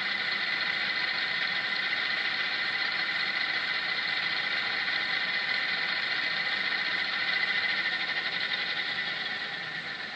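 Diesel engine sound from the sound decoder in a model Fell diesel locomotive, played through its small onboard speaker: a steady, thin idle while the locomotive stands still, fading gradually over the last couple of seconds.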